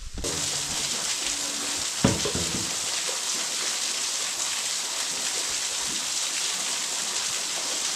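Waterfall rushing with a steady, even roar of falling water that cuts in abruptly at the start. There is a single knock about two seconds in.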